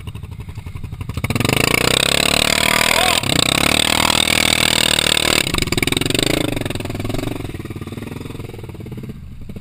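ATV engine revving hard with its tires spinning in mud, starting about a second in and held for about five seconds, then easing off and dying down.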